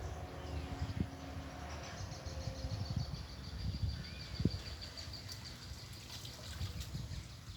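Water sloshing and splashing with irregular low knocks, and a short bird chirp about four seconds in.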